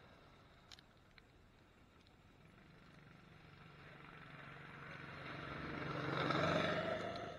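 Arctic Cat ZR 120 youth snowmobile's small engine running, faint at first and growing steadily louder as it approaches. It peaks about six and a half seconds in, then drops away quickly.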